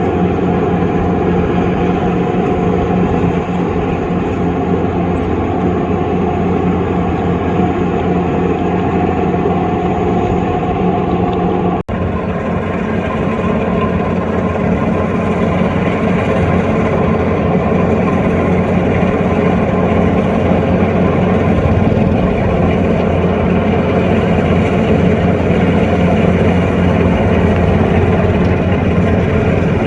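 Kubota DC105X rice combine harvester's diesel engine running steadily under a loud, even drone, with a brief cut about twelve seconds in.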